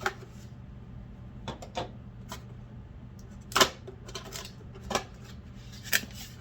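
Unboxing handling noise: a Dietz hurricane lantern's box and packaging being opened and handled, giving a series of sharp clicks and knocks, the loudest about three and a half seconds in.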